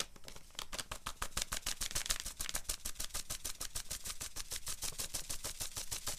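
Paper spice sachet being shaken and tapped to pour out ground spice: a fast, even run of crisp papery ticks, about ten a second.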